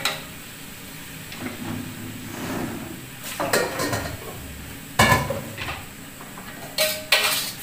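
Metal kitchenware clattering: a few separate clinks and knocks of pots and utensils being handled on the counter, the sharpest about five seconds in, over a low sizzle from the wok of spinach.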